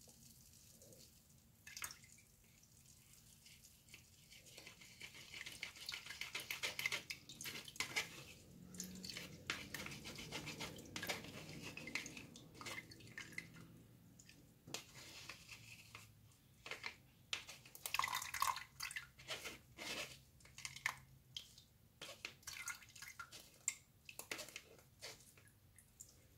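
Faint scraping and brushing of a plastic utensil working pulp in a fine wire-mesh sieve, with soft drips and small clicks as pineapple-ginger juice strains into a plastic jug. The scraping comes in stretches, busiest in the middle and again in the second half.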